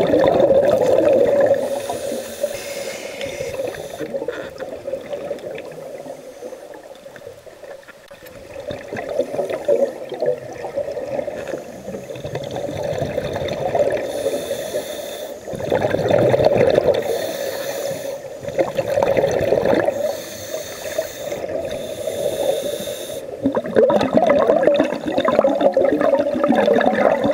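Scuba diver breathing underwater through a regulator: hissing inhalations alternate with bubbling, gurgling exhalations in slow cycles a few seconds apart.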